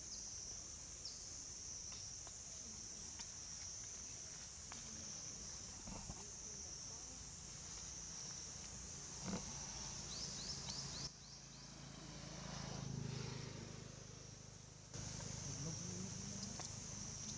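Steady high-pitched drone of insects, with scattered faint clicks and a few short squeaks about halfway through. The drone drops out for a few seconds about two-thirds of the way in, then returns.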